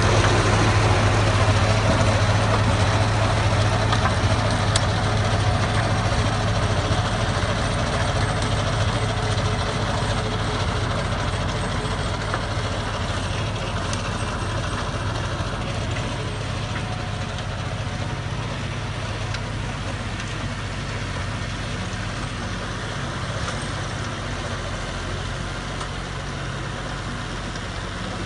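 Tractor engine running steadily while it powers a Cropking rotavator (rotary tiller) tilling soil, with a strong low hum. The sound slowly grows fainter over the stretch.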